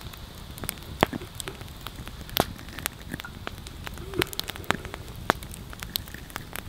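Wood campfire crackling: scattered, irregular sharp pops and ticks over a faint steady hiss.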